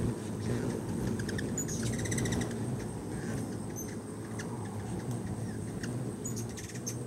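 A crowd of hummingbirds around a feeder: a steady low hum of wings, with high squeaky chip calls and a rapid chittering chatter about two seconds in and again near the end.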